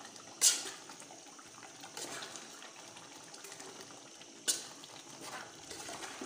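A long metal spoon stirring thick pepper stew in a metal cooking pot: wet slopping and scraping, with two sharp knocks of the spoon against the pot, about half a second in and again about four seconds later.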